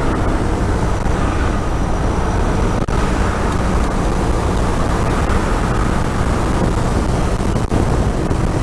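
Powered parachute in level flight: its engine and propeller run at a steady cruise, a loud, even drone with air rushing past. The sound dips for an instant twice.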